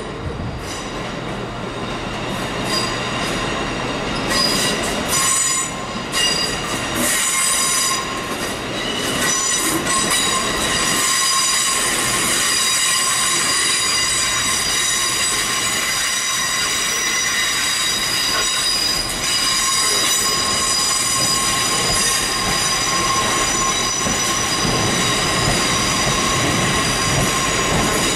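Train wheels squealing as a train moves slowly through the platform: a steady high-pitched flange squeal of several tones that sets in a few seconds in and holds, over the clicks of wheels on rail joints in the first several seconds.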